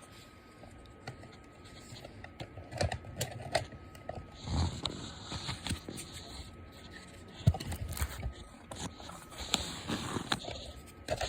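Irregular plastic clicks, taps and rustling as foam darts are pushed into the barrel of a Nerf Elite Destructor blaster.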